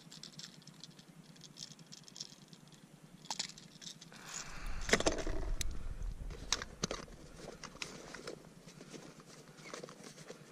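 Rattling, clicking handling noise as a small striped bass is lifted from the water by the line and held over a plastic kayak, with its lure jangling. About five seconds in comes a louder rush of noise with a low rumble, then more scattered clicks.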